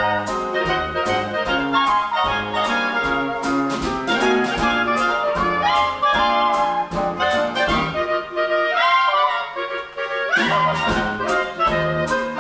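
Big band playing a swing arrangement live: saxophones and brass over string bass and drums, with regular cymbal strokes. About eight seconds in the low instruments drop out briefly, and the full band comes back in with a rising figure near ten and a half seconds.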